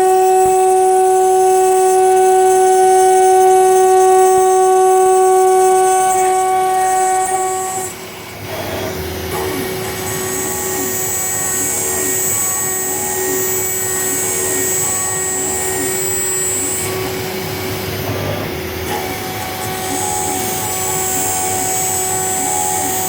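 High-speed CNC router spindle at 24,000 rpm running with a steady high whine, milling 2 mm aluminium panel with a 3 mm single-flute end mill. About eight seconds in the whine drops and a rougher, noisier cutting sound takes over.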